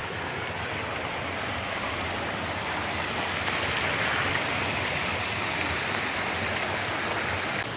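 Water of a jungle stream and waterfall rushing steadily, an even hiss that grows a little louder midway.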